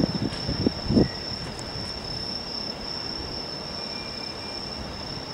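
Insects trilling steadily at one high pitch, with a brief low thump about a second in.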